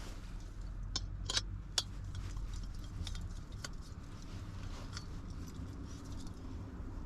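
Several sharp clicks and light clatter of small objects being handled, the loudest about a second and a half to two seconds in, over a steady low rumble.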